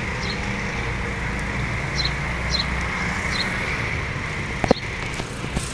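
Steady low motor hum, with short high chirps every half second or so like a small bird's and one sharp click near the end.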